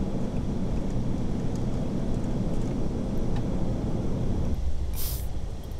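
Steady low rumble of airflow and engines inside an Airbus A380 in flight, which drops away about four and a half seconds in and is followed by a short hiss.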